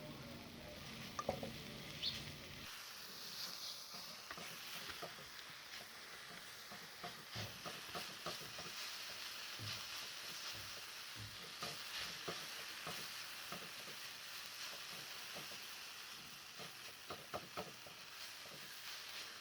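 Food sizzling in oil in a frying pan, with a utensil stirring and tapping against the pan in scattered light clicks. A low hum stops about three seconds in.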